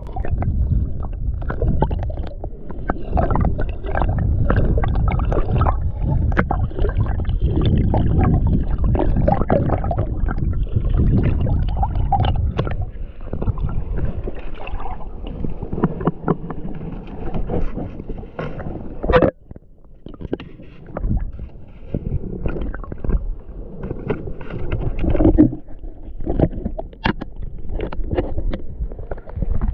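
River water sloshing and gurgling around a camera held underwater, heard muffled, with many short knocks and clicks as the snorkeler moves through the water. It dips briefly quieter about two-thirds of the way through.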